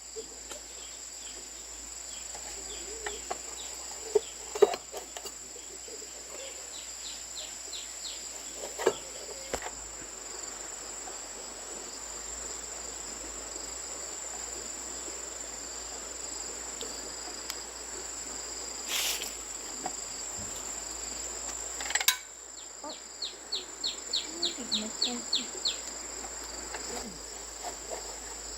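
Steady high-pitched chirring of insects such as crickets or cicadas. A few sharp knocks and clicks sound over it, the loudest at about four and a half seconds and about twenty-two seconds in. Two short runs of rapid ticking come early on and again near the end.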